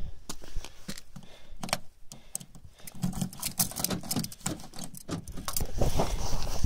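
A bunch of keys jangling in a run of small metallic clinks, with rustling from the jacket against the phone getting louder near the end.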